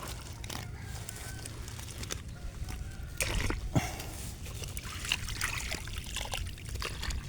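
Water sloshing and dribbling, with irregular small splashes and clicks over a steady low rumble.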